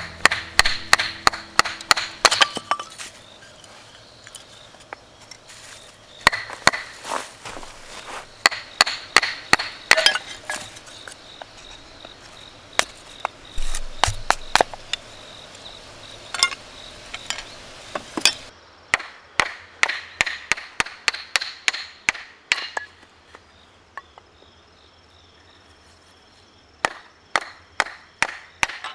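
Hatchet chopping firewood, in quick runs of sharp blows about two or three a second with short pauses between the runs. Crickets chirp faintly near the end.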